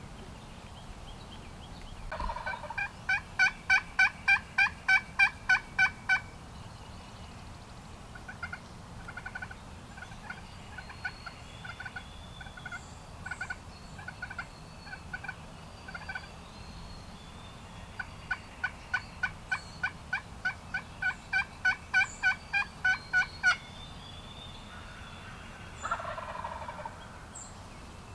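Wild turkey calling: two long runs of loud, evenly spaced yelps, three or four a second, with softer single notes between them. A short gobble comes near the end.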